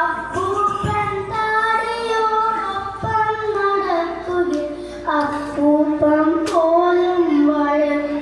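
A boy chanting a Malayalam poem to a sung melody through a microphone, in long held notes that slide between pitches, settling lower toward the end.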